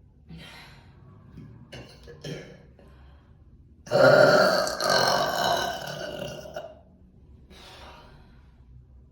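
A woman lets out one long, loud burp about four seconds in, lasting nearly three seconds, after a few faint short sounds; a fainter short sound follows near the end.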